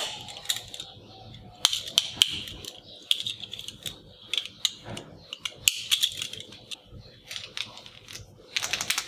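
Golden toy handcuffs being ratcheted and handled: scattered sharp clicks and clinks of the cuff ratchet and chain, with a quick run of clicks near the end.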